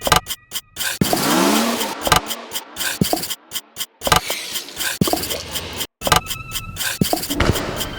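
Choppy, rhythmically cut collage of sounds that stop and start abruptly, with a vehicle-like swell about a second in.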